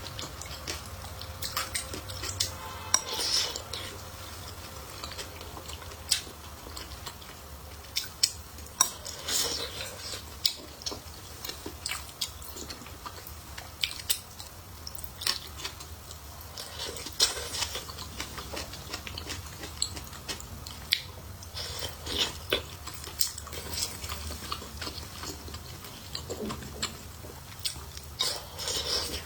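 Eating sounds: utensils clicking against a bowl again and again, with chewing and biting between the clicks.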